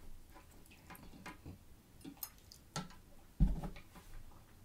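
Scattered clicks and small taps of a metal seafood pick working at food in a dish, with a heavier thump about three and a half seconds in.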